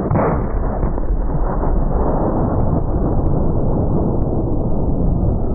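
Punt gun blast heard as a long, deep rumble with no high end, starting with a swell and running on steadily, as the shot is played back slowed down.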